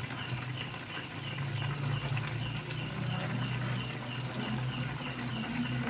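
Chicken wings simmering in sauce in an aluminium wok on a lit gas stove: a steady low hum with a faint, regular ticking of about three a second.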